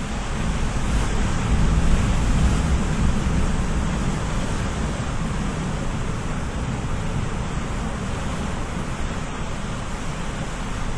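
Ocean surf, a continuous wash of breaking waves that swells to a peak about two seconds in and then slowly eases.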